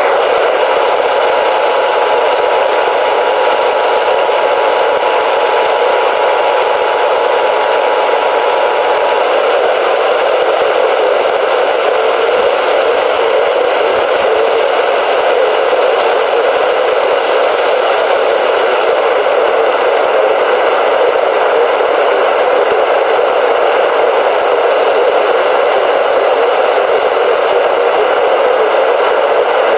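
Steady, loud radio static hiss from a weakly received broadcast. For about the first nine seconds the Emergency Alert System two-tone attention signal, two steady tones just under and over 900 Hz, sounds faintly through the static, then stops and only the hiss remains.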